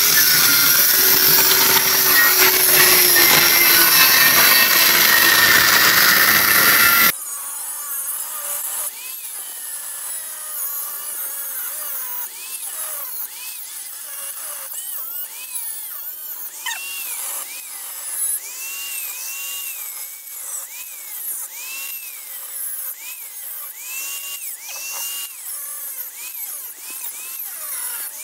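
Electric angle grinder with a cut-off disc cutting through a steel wheel hub. Loud and steady for about the first seven seconds, then quieter, the motor's whine dipping and recovering over and over as the disc bites into the metal and is eased off.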